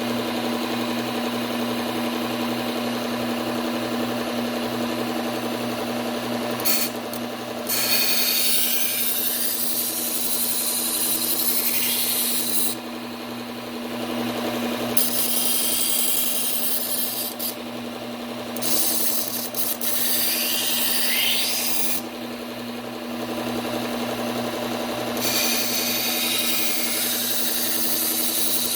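Slow-speed belt sander motor humming steadily with a Cubitron 120-grit belt running, while a kitchen knife blade is ground against it in about five passes of one to five seconds each, a rasping hiss over the hum. This is the apexing stage, grinding the edge until a burr forms along the blade.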